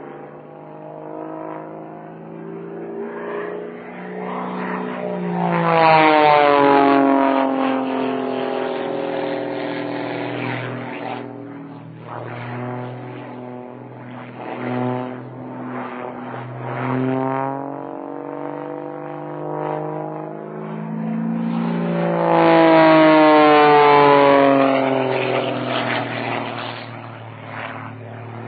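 Propeller plane flying aerobatics, in an old recording: its engine note rises and falls as it manoeuvres. It makes two loud passes, about six seconds in and again a little past twenty seconds, each with the pitch dropping as the plane goes by.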